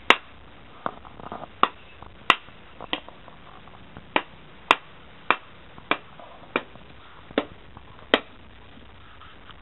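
A run of about a dozen sharp, separate clicks, roughly one every two-thirds of a second, over a quiet steady background.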